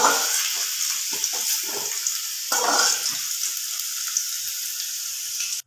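Diced potatoes sizzling in hot mustard oil in a metal kadai, with repeated scrapes of a flat metal spatula against the pan as they are scooped out. The sizzle stops abruptly at the very end.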